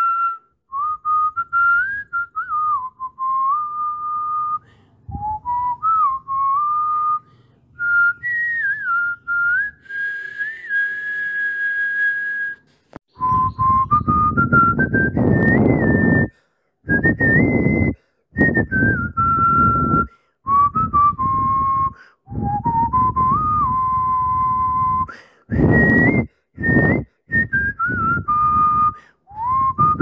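A whistled tune: one clear melody stepping and gliding up and down in pitch. In the second half a rushing noise runs under it, and the tune and noise cut out together several times for a moment.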